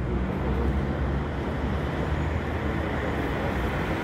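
Steady low rumble of a running motor vehicle, with street noise around it.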